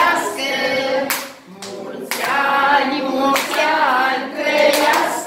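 A group of children singing a birthday song together, with some hand clapping.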